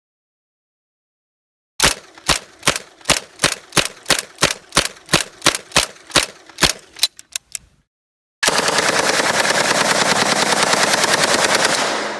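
Firearm shooting: a quick string of about sixteen single shots at roughly three a second, ending in a few weaker ones. After a short pause comes one long fully automatic burst of about three and a half seconds that stops sharply.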